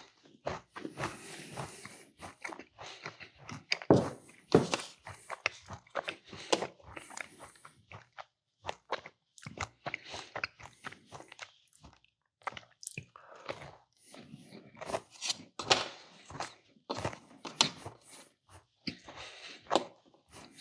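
Close-miked chewing and crunching of small cookies, an uneven run of bites and crunches with louder snaps now and then.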